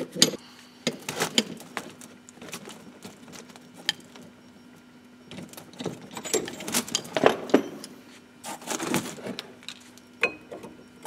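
Irregular metallic clinks and clatter of a spanner on a screw-type brake piston compressor tool pushing a caliper piston back, and of the tool being taken off and the brake caliper handled.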